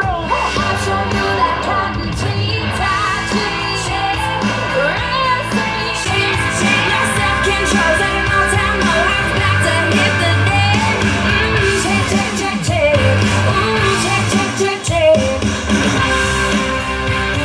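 A pop-rock song with a lead singer over guitar and steady bass, played through a compact powered PA speaker.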